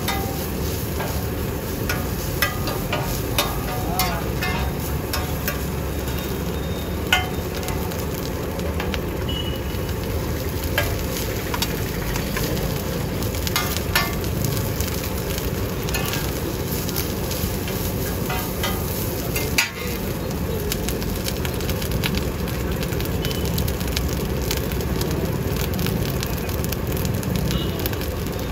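Fried rice sizzling in a hot pan, with the metal ladle or spatula clinking sharply against the pan again and again as the rice is stirred and tossed.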